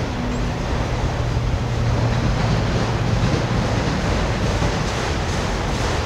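Norfolk Southern autorack freight cars rolling past on the rails, a steady rushing rumble with a strong low hum and no distinct clicks.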